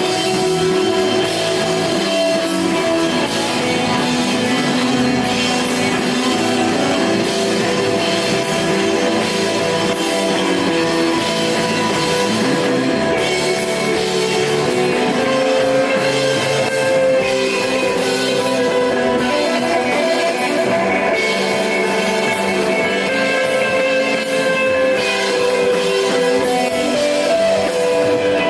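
Rock band playing live: electric guitar holding long, ringing notes over bass and a drum kit with cymbals, at a steady loud level.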